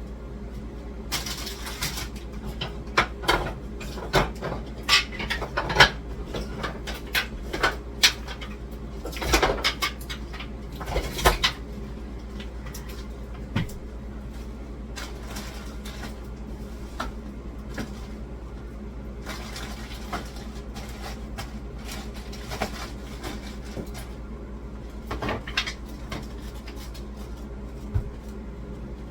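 Intermittent knocks, clicks and clatters of household items being handled and set down, like cupboard doors and dishes, over a steady low hum. The clatter is densest in the first dozen seconds and comes again briefly about 25 seconds in.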